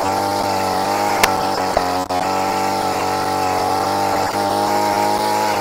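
Small engine of a burrinho mecânico (motorized mule cart) running at a steady speed.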